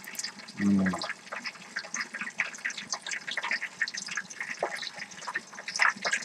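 Food frying in hot oil inside a lidded electric pan: a dense, irregular crackle of small pops.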